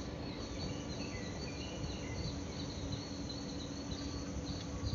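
Insects chirring steadily outdoors, a continuous high-pitched buzz, with a few faint higher chirps over a low steady hum.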